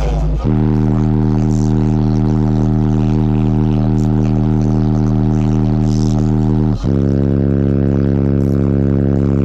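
Four Concrete C3 15-inch car subwoofers playing a loud, held bass note, changing to a different held note about seven seconds in.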